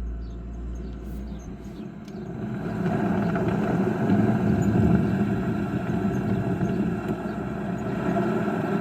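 Recording of a Niva Travel driving, played back through a phone speaker: muffled vehicle noise that grows louder about two and a half seconds in. It was filmed to catch a periodic squeak, which is hard to make out over the phone.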